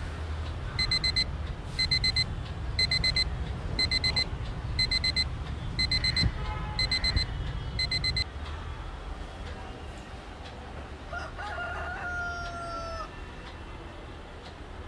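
Bedside alarm clock beeping in quick high-pitched bursts, about one burst a second, eight times, then cut off about eight seconds in as it is switched off. A brief held tone follows a few seconds later.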